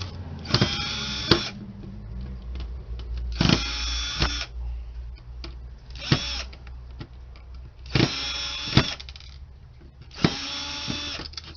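Cordless power screwdriver with a Phillips bit backing screws out of a zip drive's casing, its motor whining in five short runs of about a second each, with sharp clicks in between.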